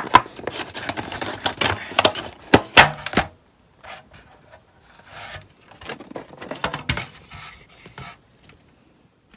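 Clear plastic takeout clamshell and cardboard food box being handled: a quick run of sharp crackles and clicks for the first three seconds or so, then lighter, scattered rustling and clicks that die away near the end.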